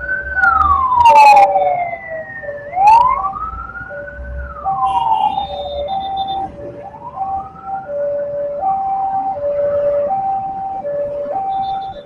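Railway level-crossing warning alarm alternating between two steady tones, switching about once a second. Over it, a siren wails up and down three times in the first seven seconds. Two short sharp noises come about one and three seconds in.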